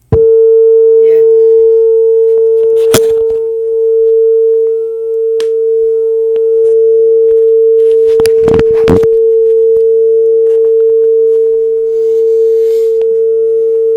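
Steady pure test tone, mid-pitched, from a test disc played through a Sony MHC-EC99i mini hi-fi's speakers; it starts abruptly and holds unbroken. A few sharp clicks or knocks sound over it, the loudest about three seconds in and a close pair past the middle.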